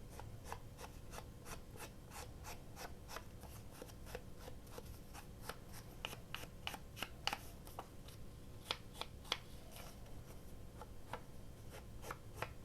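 Edges of a wallpaper sample being distressed: a quick, irregular series of short, faint scratchy strokes on paper, a few a second.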